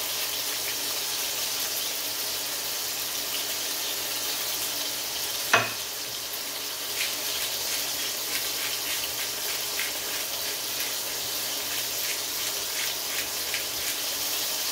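Thin chicken breasts frying in hot olive oil in a skillet: a steady sizzle with small crackles and pops. One sharp knock about five and a half seconds in.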